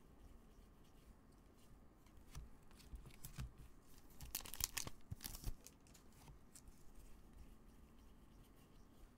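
Faint rustling and light clicks of glossy trading cards being slid and flipped through in nitrile-gloved hands, with a louder flurry of card handling about four to five and a half seconds in.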